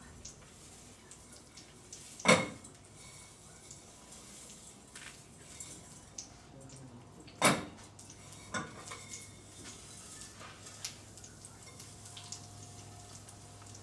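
Metal spoon knocking against a steel pot as vermicelli is stirred while it roasts in ghee: two sharp clanks about five seconds apart, among lighter knocks and clicks.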